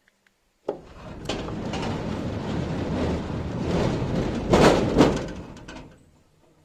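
Garen sliding-gate motor driving a steel gate along its rack: it starts with a clunk, then the gate runs with a steady rumbling rattle for about five seconds. Two loud knocks come near the end, and the noise fades as the gate slows to a stop.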